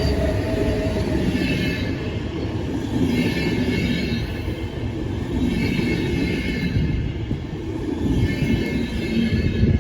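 Train running through a station: a steady low rumble with a high whine that swells and fades four times, every two to three seconds.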